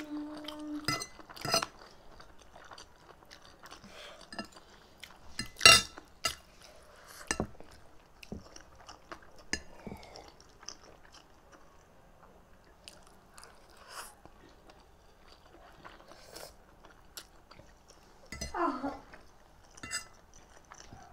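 Close-up eating sounds: chewing and slurping of instant noodles, with forks and spoons clinking and scraping on ceramic plates; the sharpest clink comes about six seconds in. A short hummed note is heard at the very start and a brief falling vocal sound near the end.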